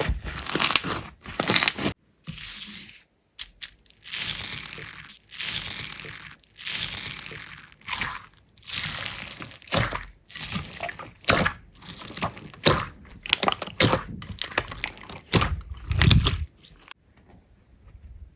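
Slime being squeezed and pressed by hand, crackling and popping in short bursts at about one press a second, stopping abruptly near the end.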